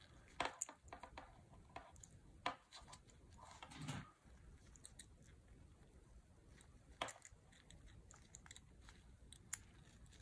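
Faint scattered clicks and taps of a small metal watch part being handled: a new 379 button-cell battery pressed into a quartz watch movement with gloved fingers. A soft rustle comes near the middle.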